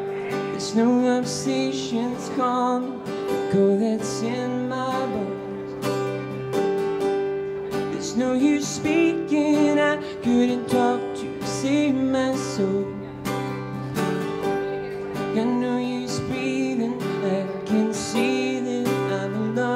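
A man singing a song while strumming an acoustic guitar, solo and live.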